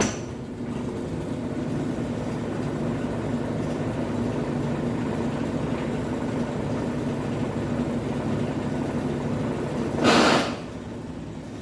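Brastemp 11 kg top-loading washing machine running its spin cycle in self-test, a steady motor hum, the noisy spin it was brought in for. About ten seconds in a loud harsh rushing burst lasts about half a second, and the machine runs quieter afterwards.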